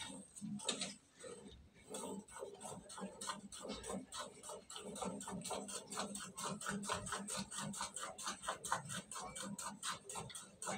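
Cow being milked by hand: jets of milk squirting into a steel pail in a quick, steady rhythm of several squirts a second.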